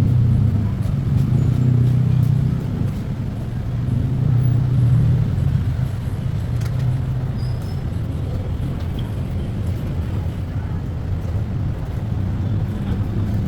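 Street traffic: a steady low engine rumble of passing vehicles, swelling and easing a few times.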